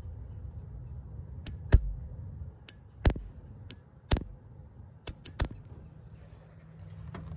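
Automatic-transmission shift solenoid clicking as 12 volts is tapped to it on a bench test of whether its valve moves: about nine sharp clicks at uneven intervals, over a steady low hum.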